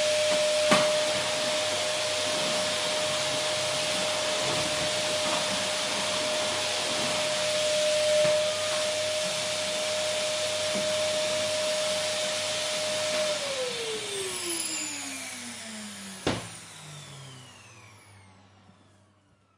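Vacuum cleaner running steadily, a rushing hiss with a high motor whine. About two-thirds of the way in it is switched off: the whine falls in pitch as the motor spins down and the noise fades away. A single sharp knock comes near the end.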